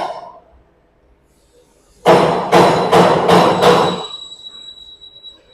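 Spring forming machine working 6 mm wire, giving a loud run of five evenly spaced knocks, about two and a half a second, after a short silence. As the knocks stop, a faint steady high whine remains.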